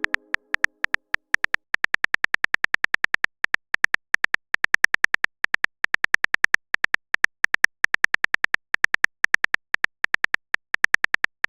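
Keyboard typing sound effect of a texting-story app: a long run of short, identical clicks, several a second in an uneven rhythm, as a message is typed out.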